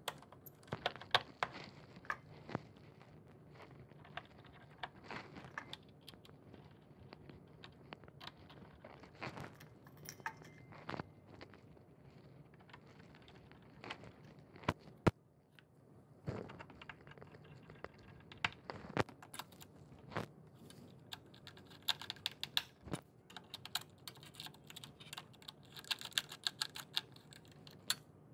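Small screws being set and driven with a precision screwdriver into the plastic bottom frame of an HP 200 Pro G4 all-in-one PC: irregular light clicks and taps of metal on plastic, busier near the end.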